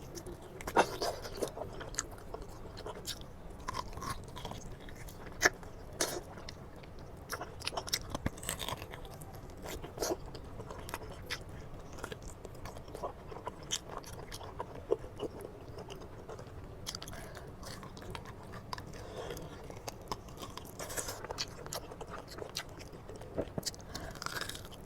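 A person chewing and biting food close to the microphone, with irregular crisp clicks and crunches, the sharpest about a second in and around five seconds in.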